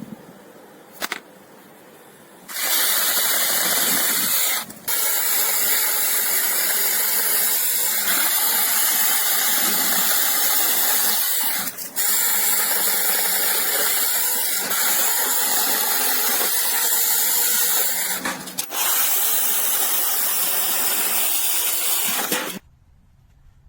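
Cordless brushless 6-inch mini chainsaw running, starting about two and a half seconds in. It runs with a steady, hissy noise, breaks off briefly three times, and cuts off suddenly near the end.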